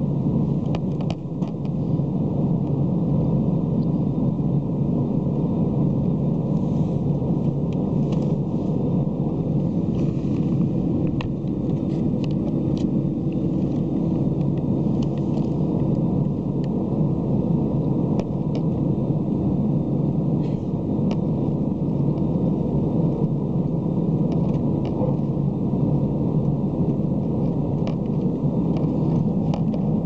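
Airbus A320 cabin noise with the engines at idle: a steady low rumble with a constant hum, heard from inside the cabin.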